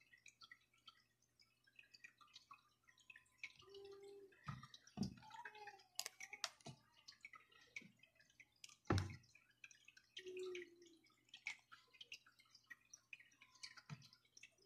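Faint, scattered ticks and soft knocks of vegetable pieces and wooden skewers being handled on a plastic cutting board, with a sharper knock about nine seconds in.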